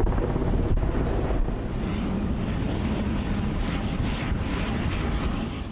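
Wind buffeting the microphone over the low rumble of harbor tugboat engines and churning wash as the tugs push an aircraft carrier. A faint steady hum joins about two seconds in.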